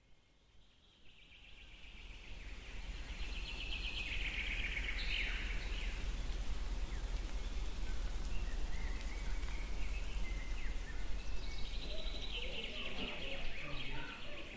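Outdoor ambience fading in over the first few seconds, with birds calling in two stretches of rapid high chattering, about three seconds in and again near the end, over a low steady rumble.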